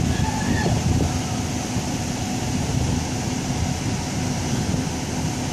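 Idling vehicle engines: a steady low rumble with a faint constant hum.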